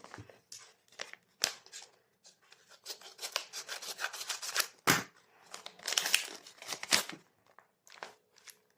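Plastic blind-bag packaging being handled and opened: irregular crinkling, rustling and tearing, with sharp clicks scattered through and the loudest bursts a little past the middle.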